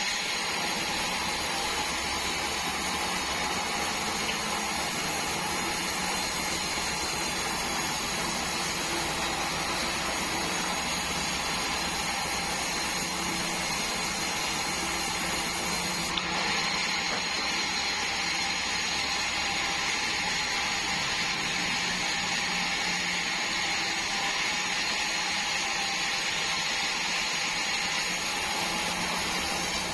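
Band sawmill running steadily, a continuous machine noise with a high whine; the sound changes slightly about halfway through.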